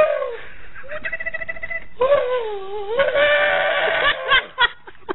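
Camel calling with its mouth wide open: a series of high, wavering calls, the longest about two seconds, rising and falling in pitch.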